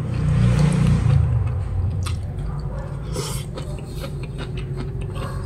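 Close-up mouth sounds of chewing sea grapes: wet squishing with many small crisp pops as the bead-like seaweed bursts.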